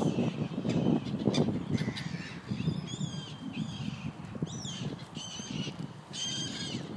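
Gulls calling overhead: a few short, harsh cries about three seconds in and again three times toward the end, over a low rushing noise.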